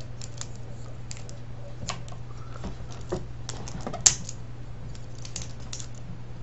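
Irregular small clicks and ticks of hard plastic and metal parts from a DVD player's disc-drive mechanism being pried apart and handled by hand, with one sharper snap about four seconds in, over a steady low hum.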